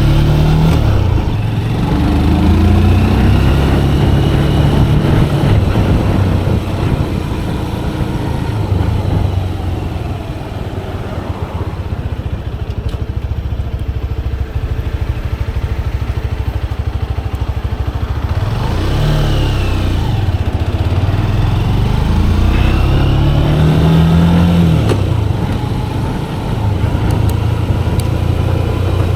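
Manual-gearbox motorcycle engine running, its pitch rising and falling again and again as it is revved and eased off. There are clear rising revs near the start and again about two-thirds of the way in.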